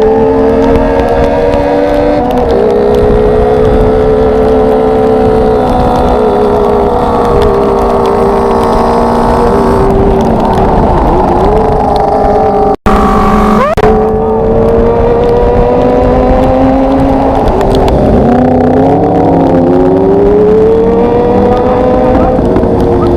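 Sport motorcycle engine running under way, its pitch rising and falling with throttle and gear changes over a steady rush of noise. The sound drops out for an instant about 13 seconds in.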